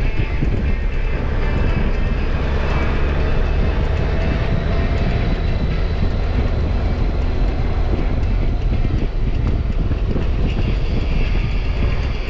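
Honda Gold Wing GL1800 motorcycle under way: a steady rumble of wind and road noise with the flat-six engine running underneath.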